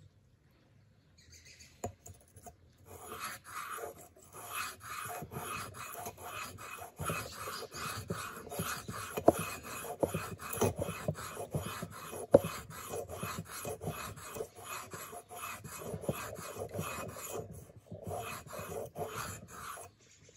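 Leatherman PST knife blade being drawn back and forth across a sharpening stone: an even run of scraping strokes, about two a second, with a short pause near the end.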